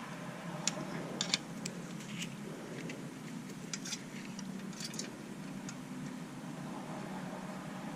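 Scattered light clicks and taps of small tools and the instrument-cluster circuit board being handled during soldering work, over a steady low hum.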